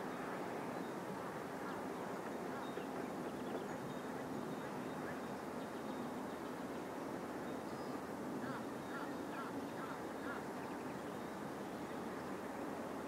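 Steady open-air background noise with a faint low hum, and faint short bird calls a few seconds in and again about two-thirds of the way through.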